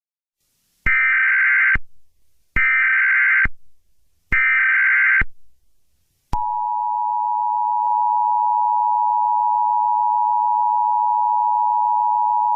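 Emergency Alert System tones: three bursts of SAME digital header data, each about a second long and spaced about a second apart, then from about six seconds in the steady two-tone EAS attention signal.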